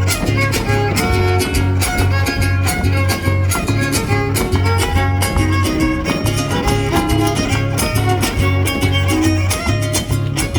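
Trío huasteco playing a huapango instrumental: a violin carries the melody over the even strummed rhythm of the jarana huasteca and the deep huapanguera.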